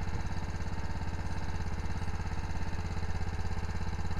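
Small engine aboard a fishing boat running steadily at idle, an even, rapid, unchanging beat.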